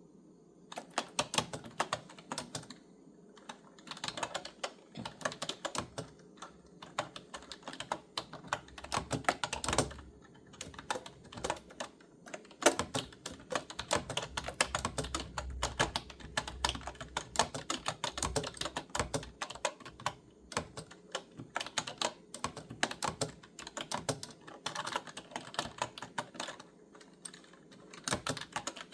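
Hands typing on a clicky keyboard: fast runs of key clicks broken by brief pauses.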